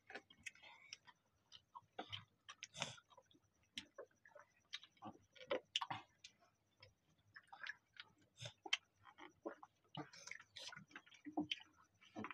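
Faint scattered clicks and small handling noises of people eating, irregular and with no steady rhythm, alongside the handling of a plastic water bottle.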